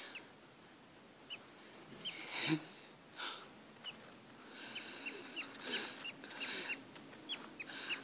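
Five-day-old budgerigar chick cheeping: short, thin, high peeps that drop slightly in pitch, scattered at first and coming more often from about halfway through.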